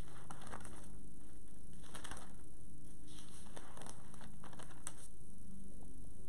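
Thin Bible pages rustling and crinkling as they are leafed through, in several short rustles spread over the few seconds.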